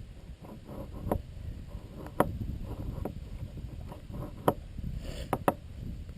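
Knife shaving slivers off a hard, frozen, resin-rich fatwood stick: a handful of sharp, separate clicks from the cutting strokes over a low rumble.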